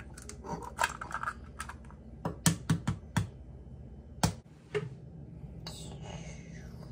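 Eggshells tapped and cracked against the rim of a bowl: a string of sharp clicks, with a quick run of about five taps a couple of seconds in and two more a little later.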